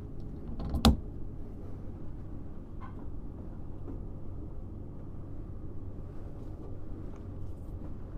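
A single sharp clunk about a second in, as the VAV box's electrical disconnect switch is thrown back on, over a steady low hum.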